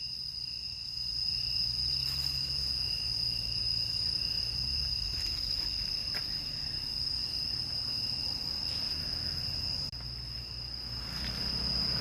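Crickets chirring in a steady, unbroken high-pitched chorus, over a low rumble from wind or the microphone.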